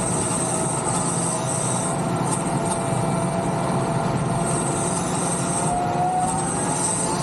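Tractor driving at road speed, towing a loaded trailer: a steady drone of engine, tyres and running gear. A faint whine rises slightly about six seconds in.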